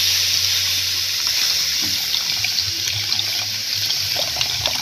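Coconut milk squeezed by hand through a plastic strainer, streaming and splashing into a hot pan of browned garlic and onion. It makes a steady running, sizzling hiss that slowly fades.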